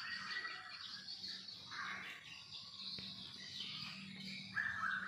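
Birds chirping and calling outdoors, with a call about two seconds in and a louder one starting near the end.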